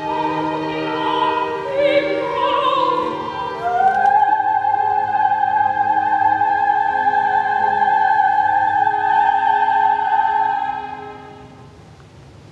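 Opera singer finishing an aria with instrumental accompaniment: a few short phrases, then a rise into one long high note with vibrato, held for about six seconds before fading out about eleven seconds in.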